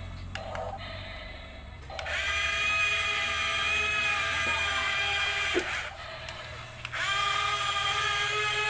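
Small electric motor of a toy construction vehicle whining at a steady pitch, running twice: switched on about two seconds in, stopping just before six seconds, then starting again about a second later.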